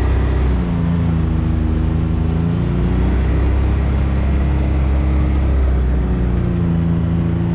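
Can-Am Maverick X3 Turbo RR side-by-side's turbocharged three-cylinder engine running under way at a steady cruising speed, its note shifting slightly up and down with the throttle.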